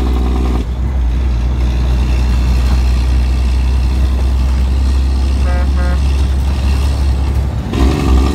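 Dump truck's Detroit 12.7-litre diesel engine running with a steady low drone, its higher engine note falling away about half a second in and coming back near the end. Two short horn toots about two thirds of the way through.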